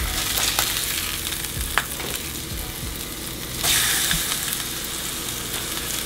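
Trout fillets sizzling in hot olive oil and garlic in a nonstick frying pan, with a few clicks of a spatula against the pan. The sizzle grows louder about three and a half seconds in, as a fillet is turned onto its flesh side.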